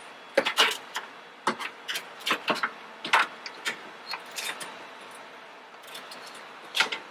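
Irregular clicks and light knocks as a replacement radiator is handled and set down into its mounts.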